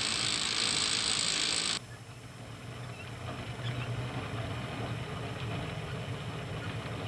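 Mechanical noise: a loud hiss-like rush that cuts off abruptly about two seconds in, followed by a low, steady engine-like hum.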